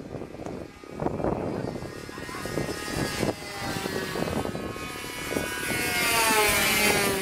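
Radio-controlled model airplane's motor buzzing as it flies past, growing louder and dropping in pitch as it passes near the end.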